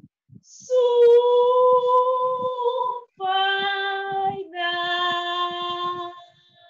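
A woman's voice singing a drawn-out name in three long held notes, each a little lower than the last, the way a name is sung to a made-up melody in a name game.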